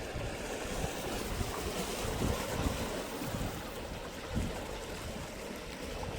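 Sea waves washing against the shore, with wind buffeting the microphone in low, irregular rumbles.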